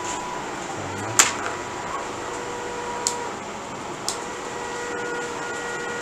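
Steady background hum with three sharp knocks, the loudest about a second in; the small outboard motor is not yet running.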